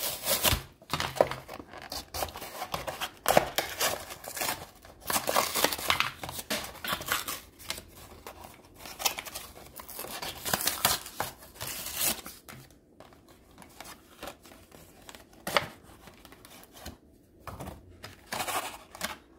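Cardboard toy packaging being torn open by hand: irregular ripping and crinkling, busiest over the first twelve seconds, then sparser handling sounds.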